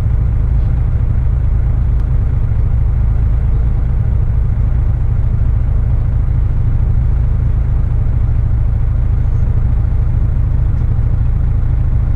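Volvo B10BLE bus's rear-mounted six-cylinder diesel engine idling steadily with a deep, even rumble, heard from inside the saloon.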